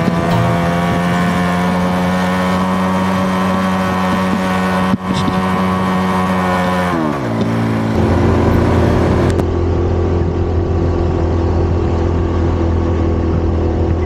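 Small motorcycle engine running at steady revs under the rider. About seven seconds in, the revs fall away, and then it settles into a lower, steady run.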